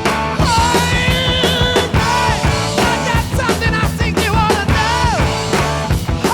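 Rock music with a steady drum beat and a lead melody that slides and bends between notes.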